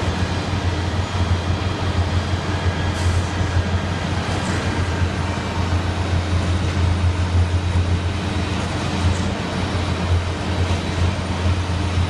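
Steady low diesel rumble of concrete mixer trucks and truck-mounted concrete pumps running during a continuous concrete pour.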